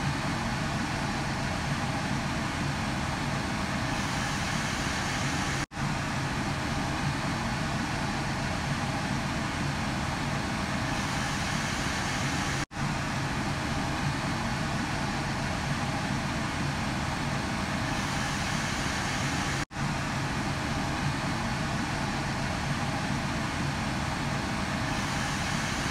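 Steady rushing noise of soup cooking over a lit gas burner, with a faint low hum. It drops out briefly three times, about seven seconds apart.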